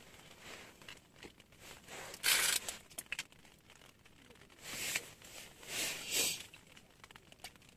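Handling noise from a short winter ice-fishing rod being set back down on its stand on the ice: three brief rustling scrapes, the first, about two seconds in, the loudest, with a few light clicks.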